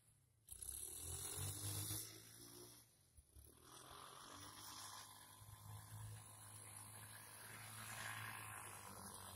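Faint, distant Motax quad bike engine running with a low, steady drone as it tows a snowboarder across snow. It dips briefly about three seconds in and grows a little louder near the end as the quad comes closer.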